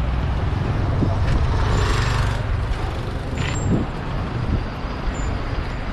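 Steady low motor-vehicle engine rumble amid city street traffic. A hiss comes about two seconds in and a shorter one at about three and a half seconds.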